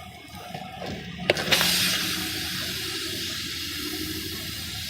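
Air hissing steadily out of a car tire's puncture as the screw comes free, starting suddenly just after a sharp click about a second in.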